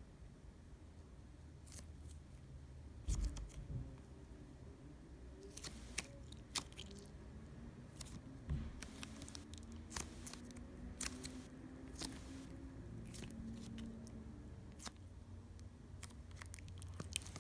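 Clear glitter slime handled by hand, stretched and pressed, giving faint sticky clicks and small pops at irregular moments, a louder one about three seconds in.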